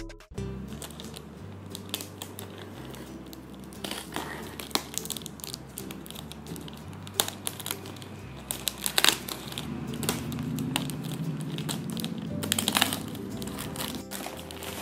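Plastic courier mailer bag crinkling and rustling with scattered sharp crackles as it is torn open and pulled off a shoe box by hand, over quiet background music.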